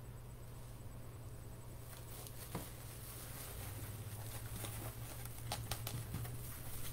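Faint handling noises: light knocks, clicks and rustles as a tumbler is set down and the next one picked up, starting about two seconds in and getting busier toward the end, over a steady low hum.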